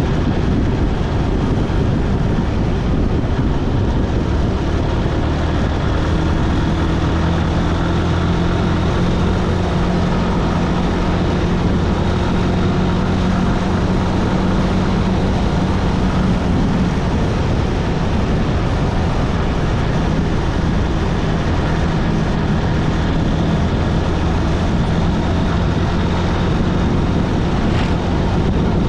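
Motorcycle engine running steadily while riding, its low hum under constant wind and road rush.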